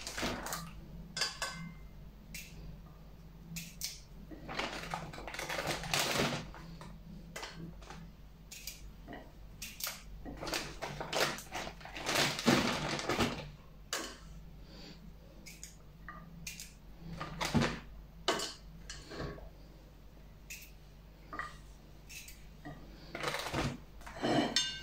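Irregular clicks and scrapes of a kitchen knife on a ceramic plate as the ends are cut off small pickling cucumbers. Now and then a plastic zip-lock bag rustles as the cucumbers are put into it.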